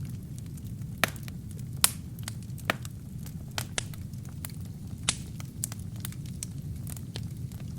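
Wood and kindling burning in a fireplace: a steady low rumble of flame with irregular sharp crackles and pops, a few louder snaps among them.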